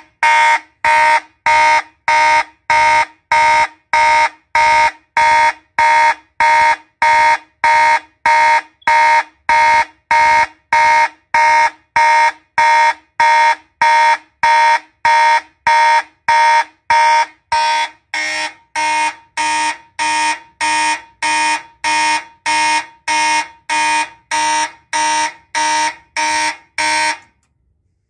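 Fire alarm horn on a Simplex 2001 panel's signal circuit, sounding in alarm after a pull station is pulled. It gives short, even blasts of one steady tone, a little under two a second, the panel's march-time coding. The horn cuts off about a second before the end.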